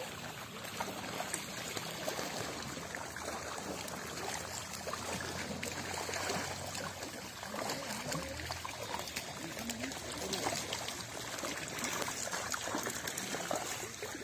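Continuous patter and trickle of water with many small splashes, as fish crowded in a seine net pulled into the shallows thrash at the pond's surface around a wading man.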